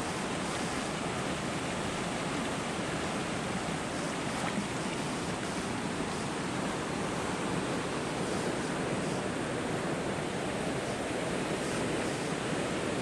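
Water pouring and splashing steadily into a rocky hot-spring pool from a small cascade and a garden hose: an even, unbroken rushing sound.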